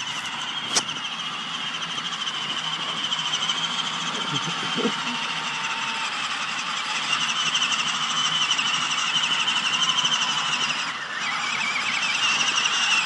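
Electric drive of a modified 24-volt Power Wheels ride-on snowmobile under way: its four size-700 motors and gearboxes give a steady high whine that wavers slightly in pitch. The whine dips briefly about eleven seconds in, then picks up again.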